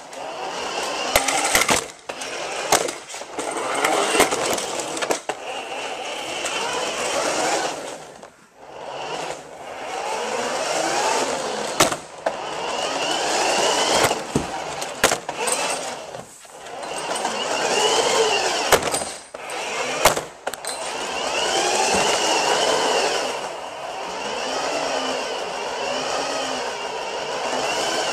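Toy RC car's electric motor and gear train whining as it drives in repeated bursts of a few seconds, the pitch rising and falling with speed, heard up close from a camera taped to the car. Sharp clicks and knocks are scattered through it as the car jolts and bumps along.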